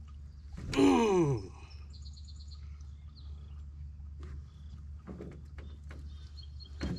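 A man's drawn-out groan about a second in, sliding steadily down in pitch, over a steady low hum. A few faint high bird chirps follow shortly after, and there are faint light ticks later on.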